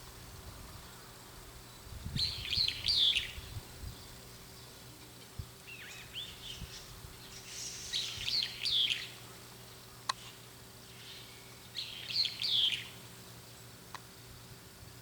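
Brown-eared bulbul calling: phrases of rapid high notes, four in all a few seconds apart, one of them fainter.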